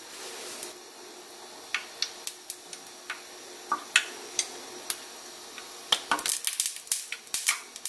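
Cooking oil heating in a nonstick frying pan, crackling with scattered sharp pops that thicken into a quick run of crackling about six seconds in, as the oil comes up to frying heat.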